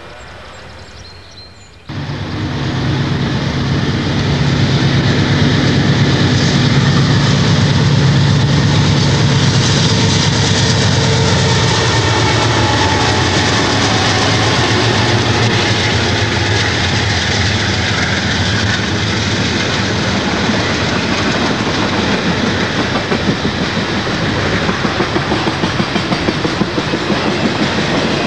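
A Conrail diesel freight train passing close at speed. The locomotives' engine drone comes in suddenly about two seconds in and drops in pitch as they go by. The cars then rumble past with a rhythmic clickety-clack of wheels over the rail joints.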